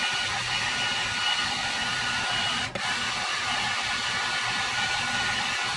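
Handheld electric heat gun blowing steadily on a freshly sprayed Duracoat coat on a pistol slide, flashing the coating. One brief click and drop in sound about halfway through.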